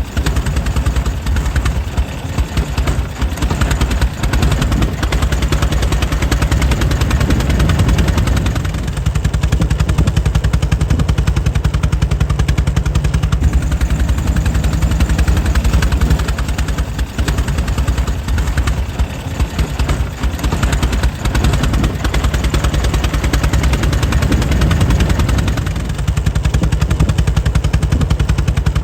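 Air-cooled 1904 Mitchell engine running steadily, its firing pulses coming in a rapid, even stream with the strongest sound low down.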